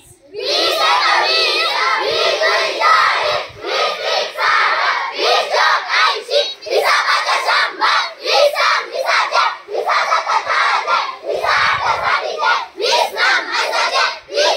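A large group of schoolchildren chanting loudly in unison, in a rhythmic sing-song broken into short phrases, starting about half a second in.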